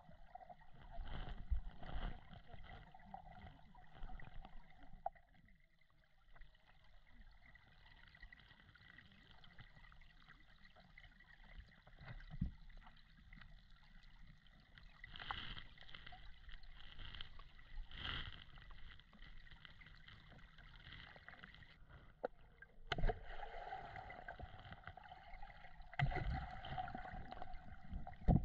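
Creek water heard underwater through a GoPro's waterproof housing: a muffled low rumble and wash of current, with a few dull knocks, the loudest near the end.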